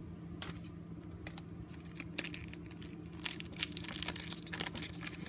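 Foil wrapper of a Score football card pack crinkling and crackling in the hands as it is picked up and torn open, in irregular sharp crackles that grow busier after about two seconds.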